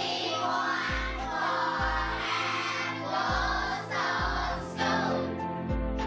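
A group of children singing together over accompanying music with a low beat about once a second. About five seconds in, the singing gives way to instrumental music alone.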